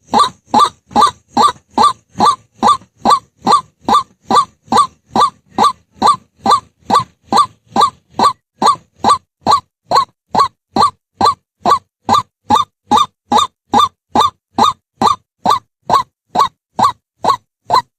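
White-breasted waterhen calling: one short honking note repeated at a very even pace, a little over two notes a second.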